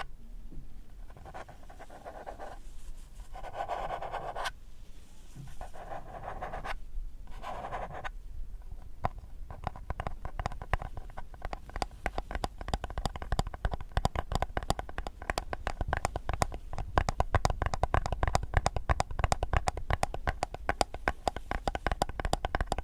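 Close-miked ASMR scratching: a few slow swishing strokes, then from about nine seconds in a fast, dense run of scratchy clicks, many a second, growing louder.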